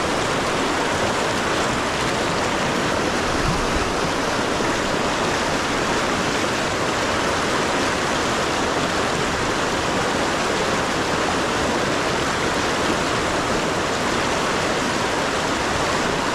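Stream water rushing steadily, an even hiss of moving water with no break.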